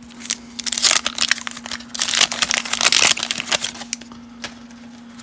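Wax-paper wrapper of a 1989 Fleer baseball card pack being torn open and crinkled by hand: a run of crackling from just after the start to nearly four seconds in, loudest in the middle.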